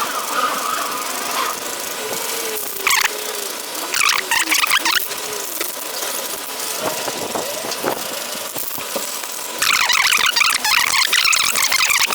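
Aerosol spray paint can hissing in short bursts, then a longer, louder burst near the end, as a coat of gold paint goes onto a computer case, over steady background noise.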